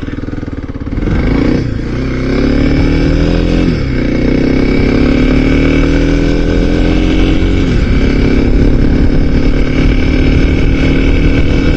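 Small 300 cc motorcycle engine accelerating through the gears: its pitch climbs, falls back at three upshifts, about two, four and eight seconds in, then holds steady at cruising speed. Wind noise runs underneath, heard through a microphone inside the rider's helmet.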